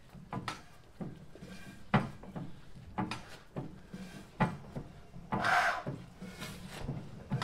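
Single-cylinder 1910 International Harvester Famous 8 hp engine being swung over by hand on its flywheels: irregular clicks and clanks from its moving parts, about one or two a second, with a short hissing rush of air about five and a half seconds in.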